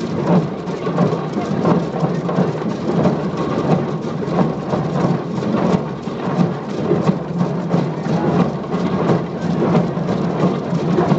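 Massed hand drumming: hundreds of drums beaten at once by a large group of children, blurring into a loud, dense, continuous rumble of overlapping strikes.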